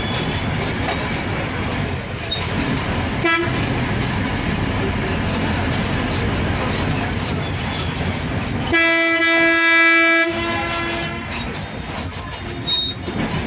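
Steady engine and road rumble heard from inside a bus moving through traffic. There is a short horn toot about three seconds in and a louder horn blast of about a second and a half near the middle, which is the loudest sound.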